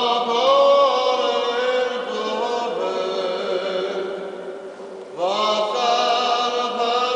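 Church liturgical chanting: voices holding long sung notes that rise and fall slowly. A phrase fades about four to five seconds in, and a new one begins just after.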